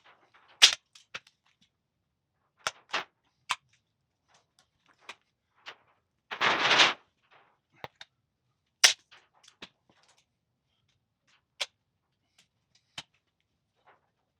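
Scattered sharp snaps and clicks of a clear plastic patterning sheet being handled and pressed onto a convertible hood frame, with one short rustle of the plastic about halfway through.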